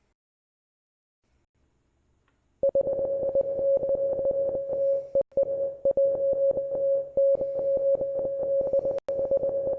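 Morse code sounded as a single steady beeping tone, keyed on and off rapidly in dots and dashes. It starts about two and a half seconds in and runs with short breaks between groups.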